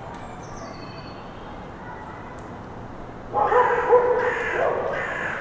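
Outdoor park ambience with small birds chirping, then, about three seconds in, a loud drawn-out call in three parts that lasts about two seconds.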